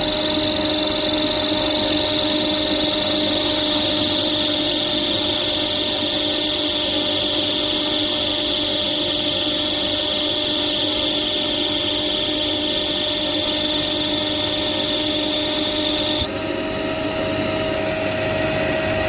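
Chicago Pneumatic air compressor running with a steady high-pitched 'choo' squeal from its loose drive belt, which slips on the pulley instead of gripping. The squeal cuts off suddenly near the end while the compressor keeps running.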